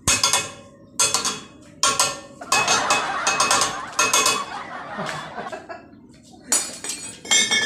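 Steel pipes clanking against each other at the vise: a sharp metallic clank about once a second, each ringing on briefly, with a denser stretch of ringing clatter in the middle.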